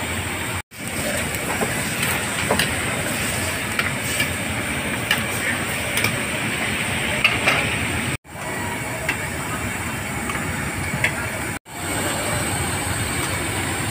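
Busy street-market ambience: a steady hiss of traffic and background voices with scattered clicks and clatter. It cuts out briefly three times.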